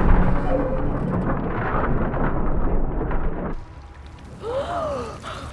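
Muffled underwater rumble and churning water. About three and a half seconds in it cuts to the surface: quieter sloshing water, then a person gasping for breath near the end.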